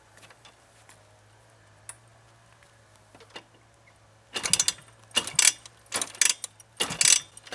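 Simson SR50 scooter being kick-started: about four seconds in, four kicks on the kickstarter, each a loud ratcheting burst roughly a second apart, as the 50cc two-stroke engine is turned over.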